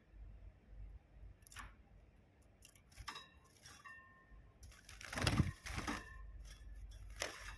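A small bird moving about and fluttering, making scattered light clinks and rustles, with a brief faint chirp about three seconds in. A louder burst of fluttering comes about five seconds in.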